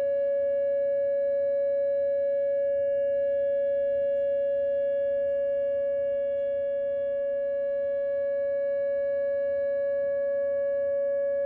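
Whelen WPS 2909 electronic outdoor warning siren sounding its steady alert tone: one loud, unwavering pitch with no rise or fall, part of a monthly full alert-cycle test.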